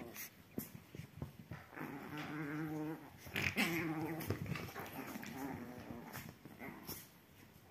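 Chihuahua puppies growling at each other in play, in several short growls of about a second each, the loudest a little past the middle, with light scuffles of paws on a fleece blanket between them.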